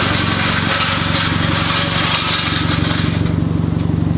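Car engine running steadily without revving, its firing pulses even, with a hiss over it that stops about three seconds in.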